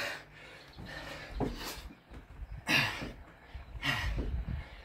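A man breathing hard and forcefully in and out, about four loud breaths, while doing Navy Seal burpees, with a couple of dull low thumps.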